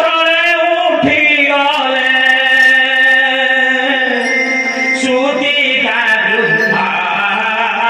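Music from an Odia Ramalila stage play: a singer holds long notes that waver and bend in pitch over a steady accompaniment.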